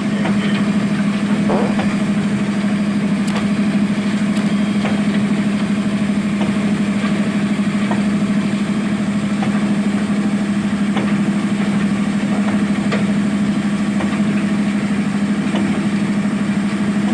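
Diesel engine of a Zoomlion ZE215E excavator running steadily at an even, unchanging pitch, with a few faint clicks and knocks over it.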